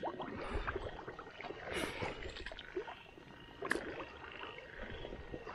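Slow footsteps wading through shallow pond water and weeds: irregular sloshing and splashing with a few soft low thumps.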